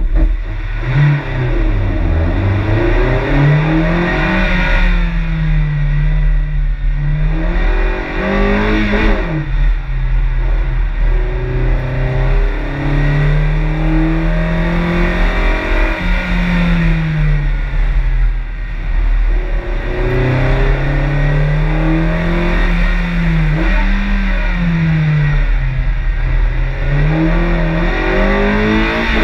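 Mazda MX-5 NB's 1.6-litre four-cylinder engine being revved hard and let off again and again on a timed autoslalom run, its pitch climbing and dropping every few seconds.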